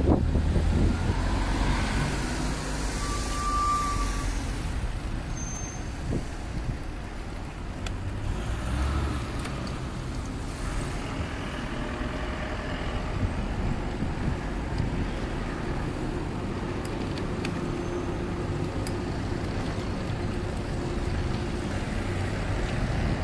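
Road traffic noise heard from a moving bicycle on a cycle path: cars passing on the road alongside, over a steady low rumble.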